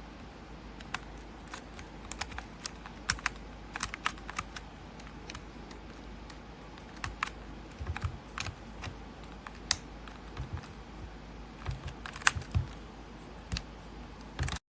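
Keys of a mechanical keyboard clicking at an uneven pace, a few strokes a second, over a steady low hum; the sound cuts off abruptly just before the end.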